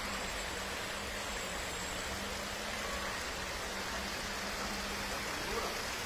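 Steady rushing hiss of an indoor swimming pool hall, with a faint low hum that stops about five seconds in.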